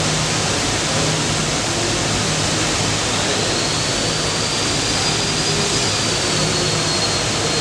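Extraction fan running steadily: an even rush of air over a low hum, with a faint high whine that rises slightly about three seconds in and then levels off.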